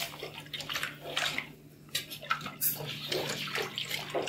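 A hand swirling and sloshing a watery spice marinade around a large metal pot, with irregular splashing and swishing.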